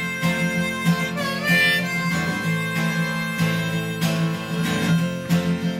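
Harmonica playing a melody over strummed acoustic guitar in an instrumental break of a song, with a wavering, bent note about a second in.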